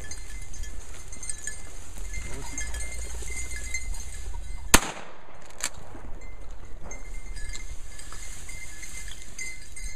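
A single loud shotgun blast rings out about halfway through, followed just under a second later by a fainter second report. Low wind and brush noise run throughout.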